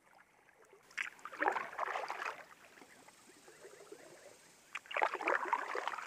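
Kayak paddle strokes in the water: two splashing, dripping strokes, the first about a second in and the second near the end.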